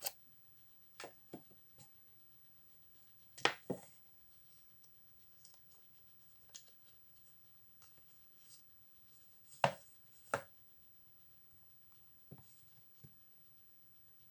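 Hands handling a phone and its packaging: scattered light taps and clicks, loudest as two quick pairs about three and a half seconds in and near ten seconds.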